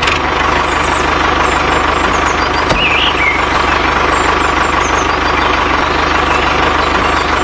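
Tractor engine running steadily with an even, regular chug, and a few faint high chirps over it.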